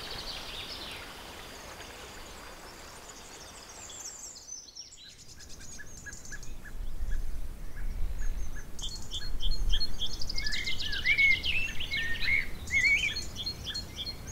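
Several wild birds singing and chirping, a mix of quick repeated chirps and warbling phrases. The sound drops out briefly about four and a half seconds in, then the birdsong comes back louder and busier.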